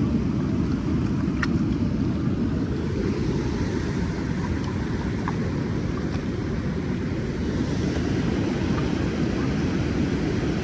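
Steady low rumble of river water rushing out below a lock and dam.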